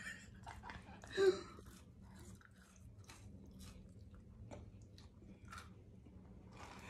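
Close-up chewing of French fries: soft, irregular crunches and mouth clicks. About a second in comes a short vocal sound, the loudest moment, and a faint steady hum runs underneath.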